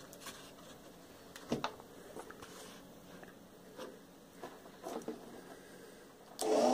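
Faint taps and rubbing of a hand handling the wooden clock case and shingles, then near the end a sudden, much louder sound with steady tones starts: the homemade cuckoo clock's bellows pipes sounding its cuckoo call.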